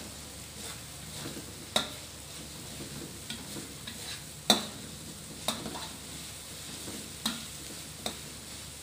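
Ground spice paste sizzling in a wok while a metal spatula stirs it, with about five sharp clacks of the spatula against the wok, the loudest about halfway through.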